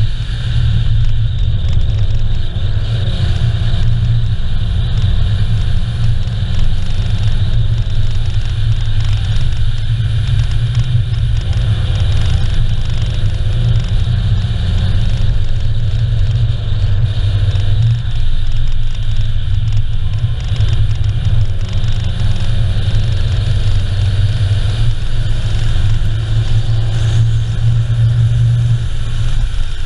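A car driving steadily on asphalt: a continuous low engine drone with tyre and road noise, its pitch drifting gently up and down.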